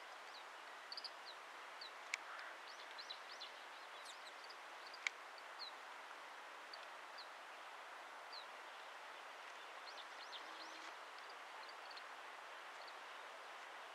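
Small finches giving short, high chirping calls, scattered and in little clusters, over a steady background hiss. Two sharp clicks stand out, about two and five seconds in.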